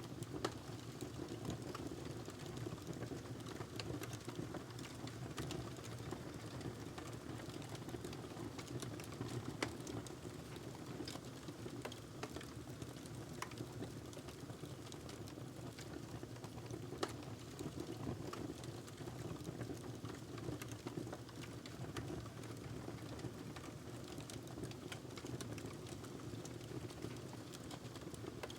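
Wood fire crackling in a fireplace: a steady low rush of flames with constant irregular snaps and a few louder pops.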